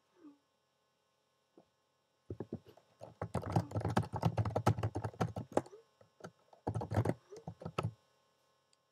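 Typing on a computer keyboard: a quick run of key clicks lasting about three and a half seconds, a short pause, then a second burst of about a second.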